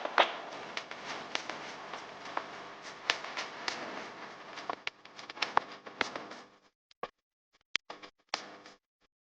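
Rain falling, a steady hiss with many sharp drops tapping on hard surfaces. About two-thirds of the way through the hiss cuts out abruptly, leaving only a few isolated taps.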